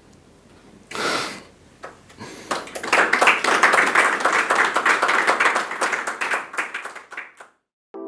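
Audience applauding, starting about three seconds in and cut off suddenly just before the end.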